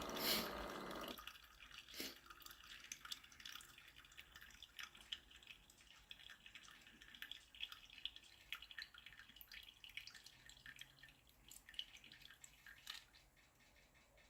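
Ninja DualBrew coffee maker brewing over ice: a steady hum from the machine stops about a second in, leaving faint, irregular drips and small ticks as the brewed coffee trickles into a glass of ice.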